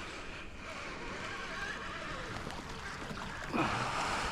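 Steady rush of flowing river water around a kayak, with a louder rush of noise starting about three and a half seconds in.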